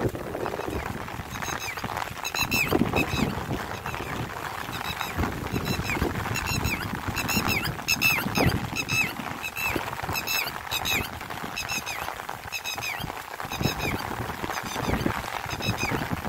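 Walking in light rain: footsteps and the hiss of rain, with short, high, squeaky chirps repeating many times in quick clusters.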